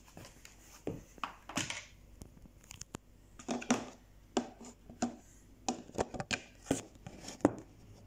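Radio-controlled Il Tempo Gigante model car's electric drive running in short, irregular stop-start bursts, with clicks and rattles, as it is driven jerkily across a wooden floor with imprecise speed control.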